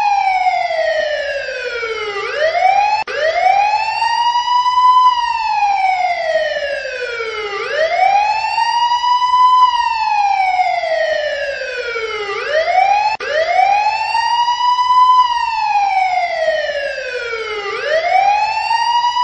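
Emergency vehicle siren sounding a slow wail: each cycle rises quickly to its peak and falls slowly back down, repeating about every five seconds. The sound cuts out for an instant twice.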